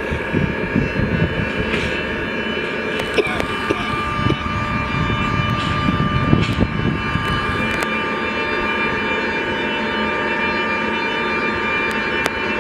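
LKAB IORE electric locomotive moving slowly past, its traction equipment giving a steady whine of several high tones over a low rumble of wheels on rail. The rumble eases about two-thirds of the way through, and a few sharp clicks sound along the way.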